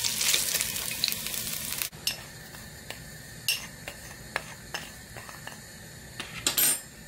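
Pork pieces sizzling as they are scraped out of a hot frying pan with a spatula; the sizzling stops abruptly about two seconds in. A few light clinks and scrapes of a metal spoon against a glass bowl of salt and spices follow, the loudest near the end.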